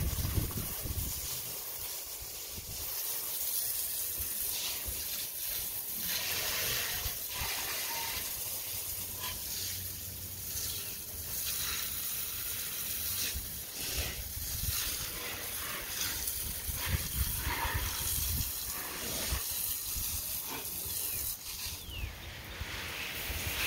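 Water from a garden hose hissing and spattering as potted seeds are watered, with wind rumbling on the microphone.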